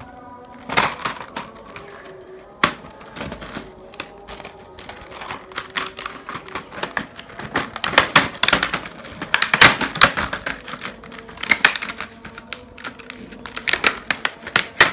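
Rigid clear plastic blister pack being pried and pulled open by hand, crackling and snapping in irregular sharp clicks that come thickest in the second half.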